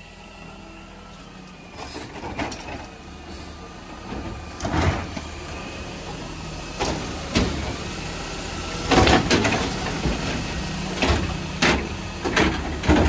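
Garbage truck running steadily, with a series of irregular metal clanks and bangs, the loudest about nine seconds in.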